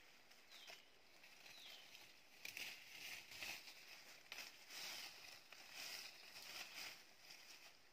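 Faint footsteps through dry leaf litter and undergrowth, rustling at each step. A bird gives two short falling chirps in the first two seconds.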